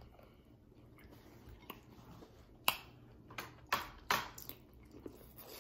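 Faint chewing of sauced seafood-boil food, with a few sharp mouth clicks and smacks in the second half.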